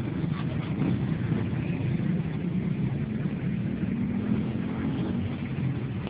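Engines of many motorcycles and a few cars running and moving off together in a steady rumble of mixed traffic.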